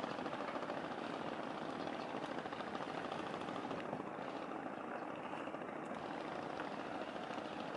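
A boat's engine running steadily, with a rapid, even pulsing chug.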